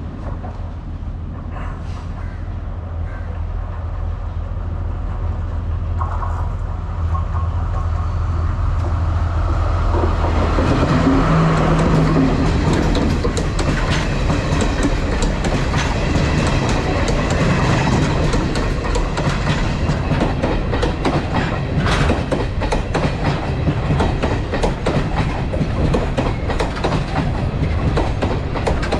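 Sri Lanka Railways Class S10 diesel multiple unit, a double set, approaching and running past close by. A low drone grows steadily louder for about the first ten seconds. Then the coaches go by with rumble and a dense run of wheel clicks over the rail joints.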